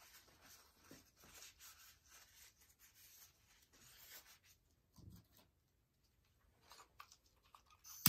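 Near silence with faint scattered rustles and small clicks of handling.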